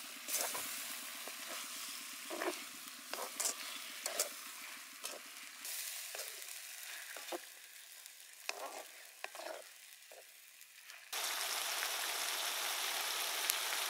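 Onions, chillies and sauce sizzling in a hot stainless-steel wok while a spatula stirs them, with scattered sharp scrapes and clicks against the pan. About eleven seconds in, the sizzling jumps suddenly louder and steadier.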